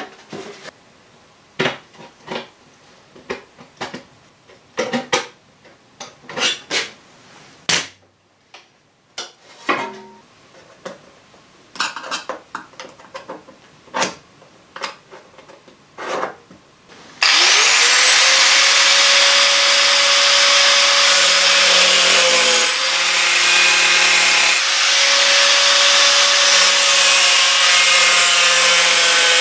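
Scattered clicks and scrapes of a steel repair panel being handled and marked out, then, a little over halfway through, a small electric angle grinder starts with a rising whine and runs loudly and steadily, cutting into the car's rusty sheet steel, its pitch dipping slightly now and then as it bites.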